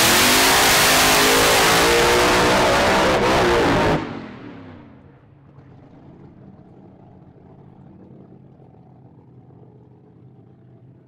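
Supercharged 521 ci BAE Hemi drag engine on methanol, very loud at full throttle with its pitch falling. It cuts off abruptly about four seconds in, leaving a faint low engine rumble that slowly fades.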